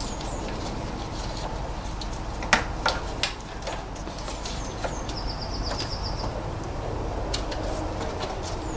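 A few sharp clicks and knocks of the ABS sensor cable and its plastic clips being worked loose in the wheel arch, loudest about two and a half to three seconds in. A small bird sings a short, rapid high trill about five seconds in, with a few brief chirps around it.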